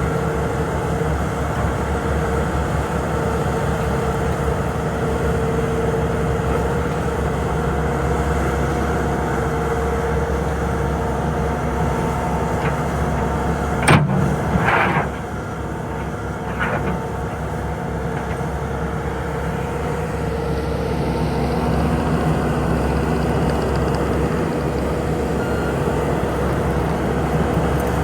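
2021 Bobcat T870 compact track loader's diesel engine running steadily. About halfway through there is a sharp click followed by a short hiss.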